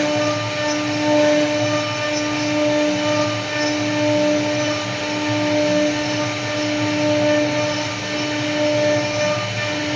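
CNC wood router spindle running with a steady whine over a noisy hiss, its loudness swelling slightly every second or so.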